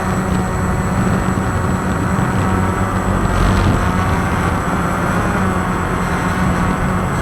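Walkera QR X350 quadcopter's motors and propellers humming steadily in flight, with a slight swell about three and a half seconds in.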